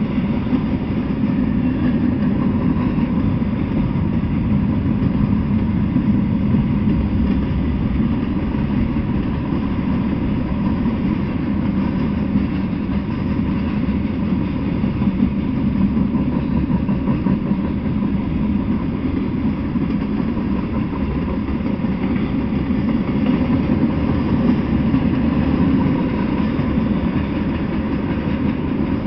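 Freight train of tank cars, boxcars and covered hopper cars rolling past on the tracks: a steady low rumble of wheels on rail that holds even throughout.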